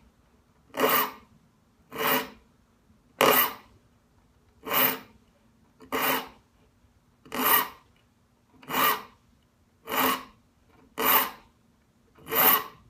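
A 4-inch extra slim triangular taper file rasping across the steel teeth of a rip-cut dovetail saw held in a wooden saw vise: about ten even, unhurried strokes, one a little over a second apart, as the teeth are sharpened gullet by gullet.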